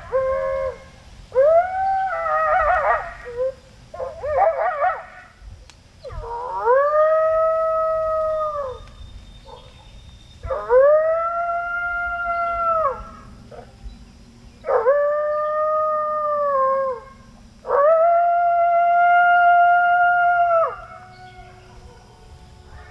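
Coyote howls: a few seconds of wavering, yipping howls, then four long howls, each rising, held for about two seconds and falling away at the end.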